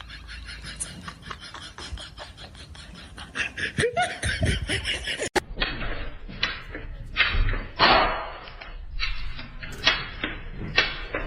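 People's voices and laughter, with short sharp sounds in the second half.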